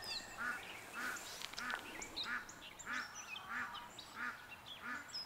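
Faint run of repeated bird calls, about three a second, with thin high chirps of small birds among them.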